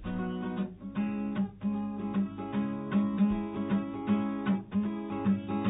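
Instrumental music: acoustic guitar strumming chords in a steady, even rhythm.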